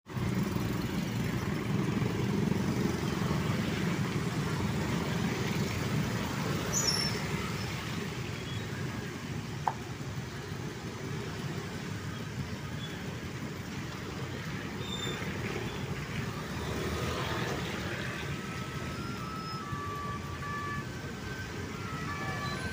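Street traffic on a wet road: motorcycles and cars running and passing close by, with tyre noise on the wet asphalt. There is a sharp click about ten seconds in and a string of short high beeps in the second half.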